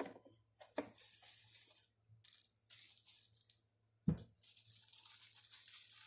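Papery rustling and tearing as a self-adhesive anti-squeal brake pad shim is handled and its backing worked loose, in short scratchy bursts. A single sharp knock comes about four seconds in.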